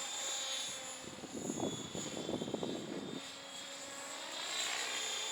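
Electric Align T-Rex 700E RC helicopter flying, its 700MX motor and drivetrain giving a steady high whine over the rotor noise. About a second in, a louder choppy low rumble joins for roughly two seconds, then fades.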